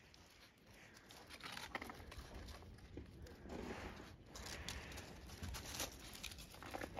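Faint, irregular crinkling and crunching of dry leaves and gravel as a five-week-old Labrador puppy walks and noses through them.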